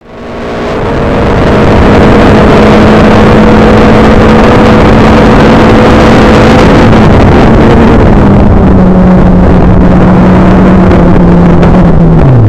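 Onboard sound of a Formula Renault 2000 single-seater's 2.0-litre four-cylinder engine held at steady high revs, very loud with a rush of noise over it. The engine note eases a little about halfway, then starts to fall sharply right at the end as the revs drop.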